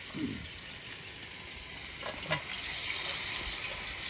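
Masala-coated fish steaks shallow-frying in oil on an iron pan, sizzling steadily, with a few light clicks or knocks near the start and about two seconds in.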